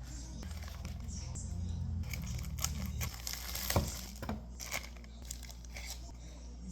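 Plastic packaging crinkling and tearing as a parcel is unwrapped, with scattered handling clicks, over faint background music.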